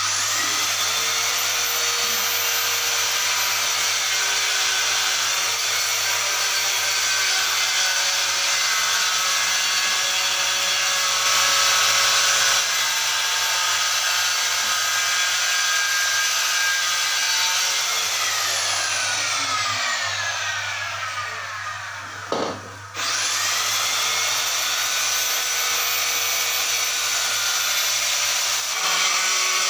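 Handheld electric tile cutter motor running with a steady high whine; about two-thirds of the way in it winds down in pitch, stops briefly, and starts up again.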